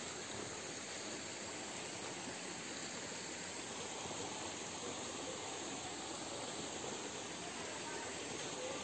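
Steady, even hiss of outdoor forest ambience with no distinct events.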